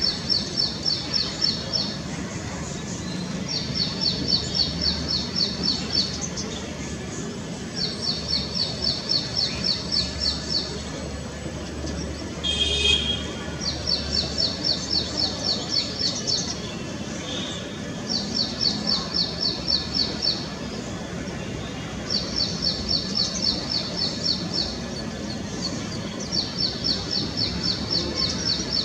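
Sunbird singing: a fast, high run of repeated notes lasting about two seconds, repeated every four seconds or so, seven times. One brief different sound comes about halfway through.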